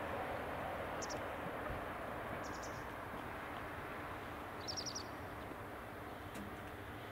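Rumble of a departing JR Shikoku 2000 series diesel express train slowly fading away, with a small bird giving three short, rapid chirping trills about a second, two and a half seconds and nearly five seconds in.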